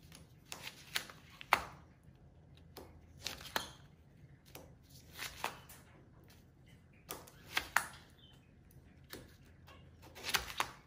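Pen scribbling on loose sheets of paper on a hard stone countertop, worked hard by a monkey's hand: irregular quick scratching strokes and sharp taps, in clusters with short pauses between.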